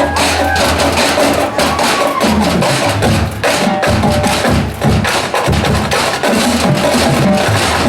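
Marching band music: a busy run of drum and percussion strokes over low held notes.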